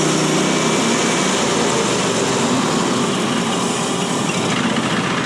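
Gas engine of a portable bandsaw sawmill running steadily, with the band blade running during a first cut through a pine log.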